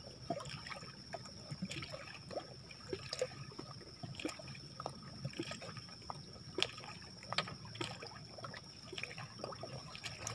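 Small water sounds: gentle lapping and trickling with scattered light ticks and splashes, the sound of water around a floating fishing raft.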